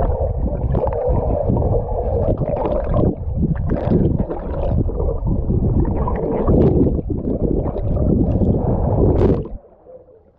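Swimming-pool water splashing and churning close to the microphone, a dense irregular rumble that cuts off suddenly near the end.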